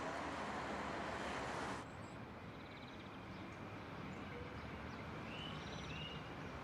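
Background ambience: a steady rushing noise that cuts off about two seconds in, then a quieter hum of background noise with a few short, rising bird chirps near the end.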